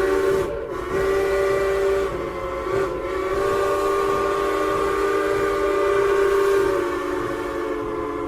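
Steam locomotive whistle blowing one long chord of several tones, dipping briefly about half a second in and again around two and three seconds in.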